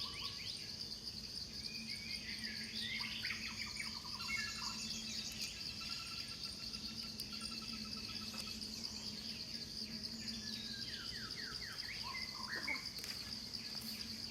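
Steady high-pitched insect drone under a mix of bird calls: rapid trills of repeated notes, chirps and short rising and falling whistles, with a faint steady low hum beneath.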